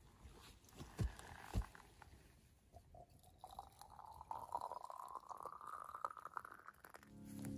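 Liquid poured from a camping kettle into a glass jar. The pour's pitch rises steadily as the jar fills. Two dull knocks come about a second in.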